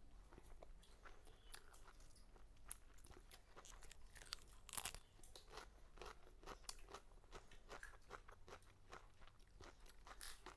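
A person chewing and crunching food close to the microphone: irregular soft crunches, with a louder crunch about five seconds in.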